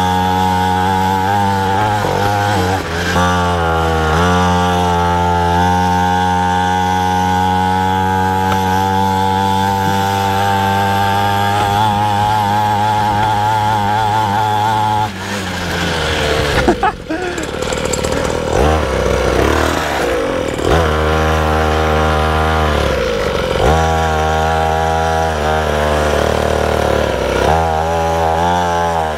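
A 50cc two-stroke pit bike engine running at steady high revs, then the throttle drops off about halfway through and the revs rise and fall several times.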